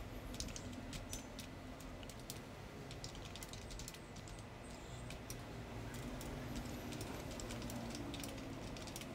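Faint typing on a computer keyboard: quick, irregular keystrokes in clusters, over a low steady background noise.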